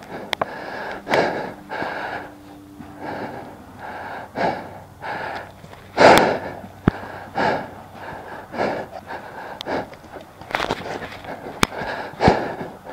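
A paintball player's heavy, rough breathing close to the microphone: repeated gasping breaths about a second apart, from exertion. A few sharp clicks are heard in between.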